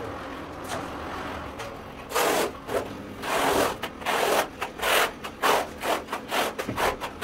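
Notched steel trowel scraping tile adhesive across a concrete floor in repeated strokes, starting about two seconds in and coming faster toward the end.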